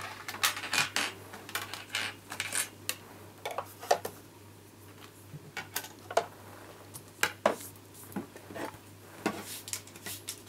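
Thin metal cutting dies and a clear plastic cutting plate clicking and clinking as they are handled on a die-cutting machine's magnetic platform: many light, irregular taps.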